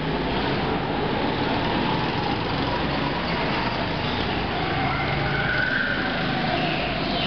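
Go-kart engines running in an enclosed indoor karting hall, a steady buzz whose pitch rises and falls as the karts brake and accelerate through the corners.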